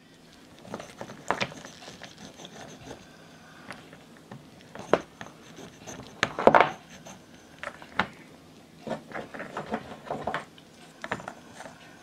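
Small plastic toy pigs and blocks being knocked, moved and set down among loose dry cereal pieces in a play tray. An irregular run of light clicks, taps and rustles, loudest about six and a half seconds in.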